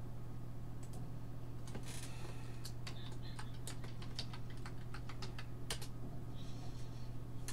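Typing on a computer keyboard: a short run of irregular keystrokes, entering a password, starting a couple of seconds in and stopping about six seconds in.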